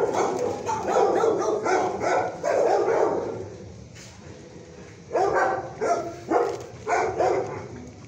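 Dog barking in a shelter kennel: a quick run of barks, a pause of about two seconds, then four more barks roughly half a second apart.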